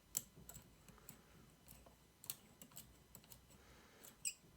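Faint, irregular metallic clicks of a lock pick working the pins inside a Mul-T-Lock interactive lock cylinder as the inner pins are gently set, with a louder click about four seconds in.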